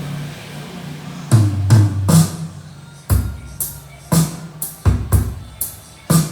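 Drum-heavy music played through a car audio system for a sound demo, with hard kick and snare hits and deep bass. The drums come in a little over a second in, after a low steady hum.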